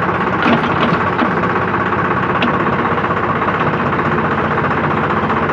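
Mini backhoe's engine running steadily as its hydraulic digging arm is worked from the levers, with a few short knocks in the first second and a half and one more near the middle.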